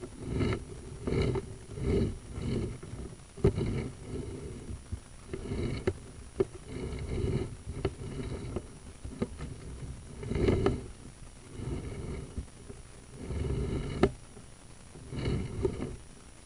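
Sewer inspection camera head and pushrod being pulled back through a drain pipe: a run of short, pitched rubbing squeaks about once or twice a second, with a few sharp clicks.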